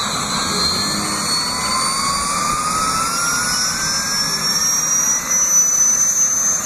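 Bell UH-1 Huey helicopter's turbine engine running, its high whine climbing steadily in pitch over a constant rushing noise.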